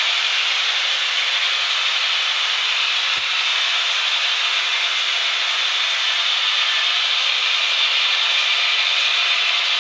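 A long model freight train, hauled by two model AC6000 diesel locomotives, climbing a wooden helix: a steady rolling hiss of many metal wheels on the rails.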